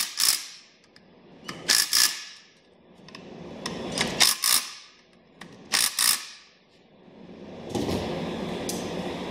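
Cordless impact driver zipping in seat track bolts in four short bursts of rattling hammering, with quiet gaps between them. A steady background noise comes up near the end.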